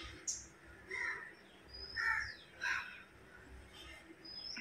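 Crows cawing a few times with short high bird chirps between, faint against the room.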